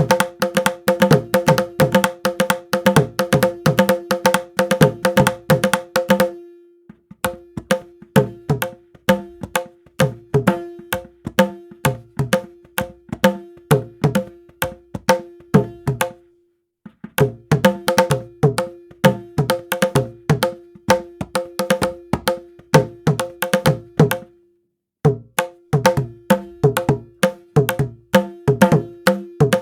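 Sampled Indian hand-drum patterns from the Kontakt library Discovery Series India: fast, dense strokes over a ringing pitched drum note. They play as four phrases with brief pauses about 6, 16 and 24 seconds in.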